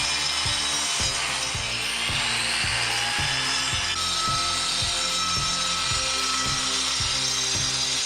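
Angle grinder running and working material, its motor pitch rising as it spins up, over background music with a steady beat.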